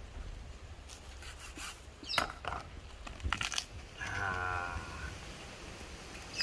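A farm animal calling once, a wavering call about a second long, after a few sharp clicks and knocks.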